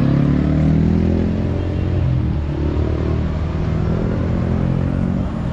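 A motor vehicle engine running steadily close by, its pitch drifting a little, with street traffic around it.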